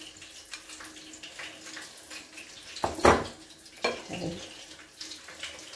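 A spoon scraping and spreading a wet egg, potato and cheese filling over a bottle gourd leaf on a plate, with one louder scrape about three seconds in, over a steady faint hiss.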